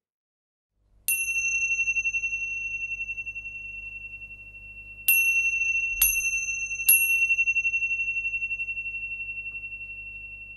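Small pair of Tibetan tingsha cymbals struck together four times: once about a second in, then three times close together in the middle. Each strike is a bright clang that rings on as one high, pulsing tone and fades slowly.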